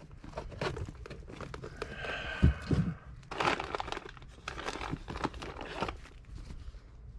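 Rustling and crinkling handling noise with scattered light clicks, a dull thump about two and a half seconds in, and denser rustling in the second half.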